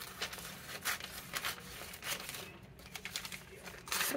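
Vintage magazine paper rustling and crinkling as a page is handled and cut with scissors, in short, irregular strokes, the loudest near the end.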